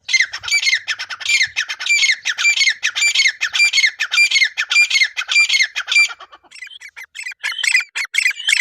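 Grey francolin (teetar) calling: a shrill phrase repeated about twice a second, then after a brief pause about six seconds in, a faster, irregular run of chattering notes.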